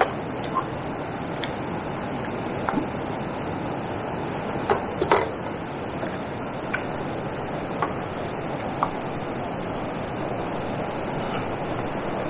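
Steady rushing of water pouring over a river weir, with a few short, light clicks scattered through it.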